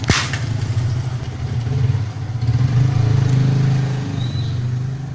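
A motor vehicle engine running nearby as a steady low hum that swells louder in the middle and eases off near the end. A single sharp click comes right at the start.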